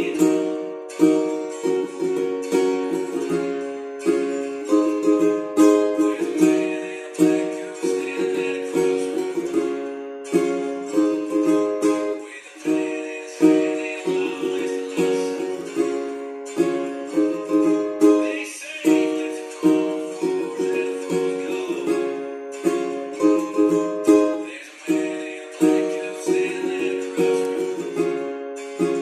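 Ukulele strummed with a capo on the first fret, cycling through Dm, F, C and G chord shapes in a rhythmic down-down, up-down-up-down strum pattern.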